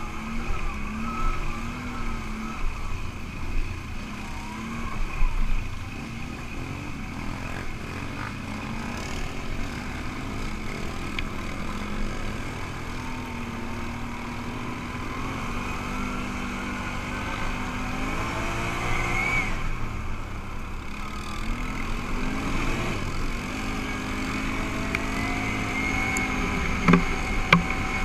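ATV engine running under way on a dirt trail, its pitch climbing as the rider accelerates, easing off, then climbing again. A couple of sharp knocks sound near the end.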